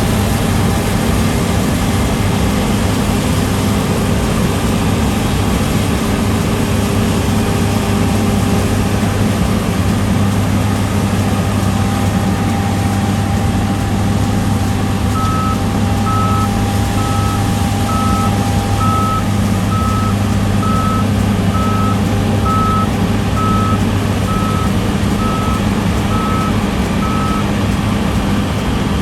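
Heavy farm machinery running steadily, with a reversing alarm starting about halfway through and beeping about once a second for around twelve seconds.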